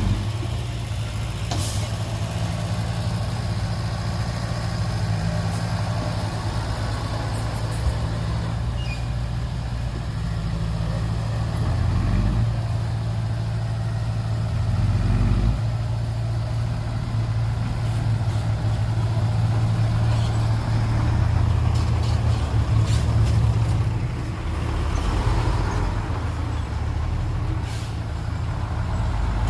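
Heavy diesel earthmoving machinery running steadily, the engine note swelling and easing as it works, with a few short sharp clanks.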